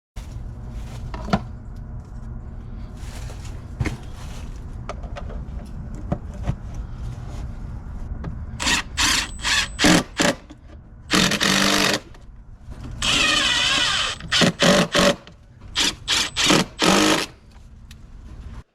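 A power tool, such as a cordless drill or driver, run in repeated short bursts in the second half over a steady low hum.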